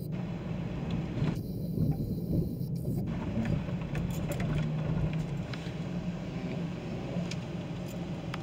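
Steady low vehicle rumble, with light clicks scattered through the second half.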